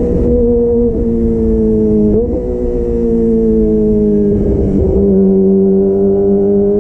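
Kawasaki ZX25R's 249 cc inline-four running through an aftermarket DX Generation Pro Race exhaust under way. Its note eases down in pitch, jumps up briefly a little after two seconds in, then settles and climbs slightly near the end.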